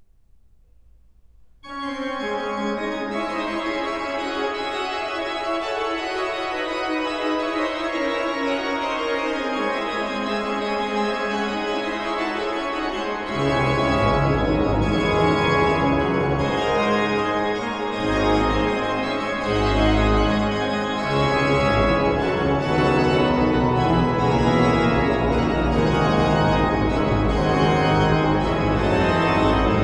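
Pipe organ beginning a piece about two seconds in after near silence, played on the manuals with many sustained notes. About halfway through, deep bass notes from the pedals come in and the music grows louder.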